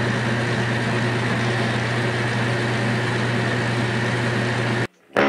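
Summit metal lathe running steadily, a low motor hum under a grinding mechanical whir, as it turns down a steel shaft; the sound cuts off suddenly near the end.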